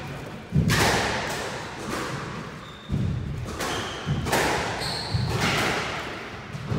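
Squash rally: the ball is struck by the rackets and slams off the court walls in sharp smacks every one to two seconds, each ringing in the enclosed court. Brief sneaker squeaks come from the players moving on the wooden floor.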